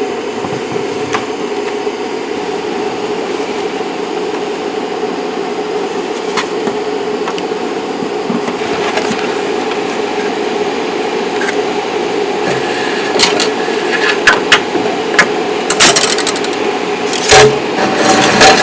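XYZprinting Da Vinci 1.0 3D printer running with a steady mechanical hum. Sharp clicks and knocks come more often in the last few seconds.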